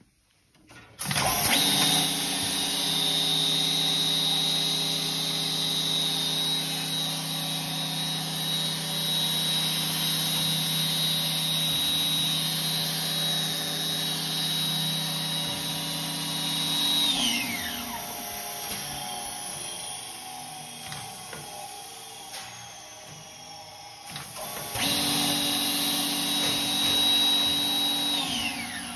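Electric spindle motor of a ROTOX KF 457 three-spindle milling machine, switched on and running with a steady high whine and hum. About 17 s in it is switched off and winds down with falling pitch. It starts again about 24 s in, runs for a few seconds, and winds down again near the end.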